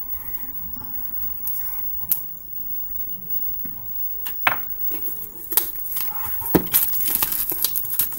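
Cardboard model-kit box in clear shrink-wrap being handled and turned: scattered sharp clicks and knocks, then denser crinkling of the plastic wrap near the end.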